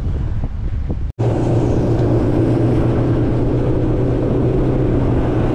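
Outboard motor of a small center-console skiff running steadily under way, a constant hum mixed with wind and rushing water. It cuts in abruptly about a second in.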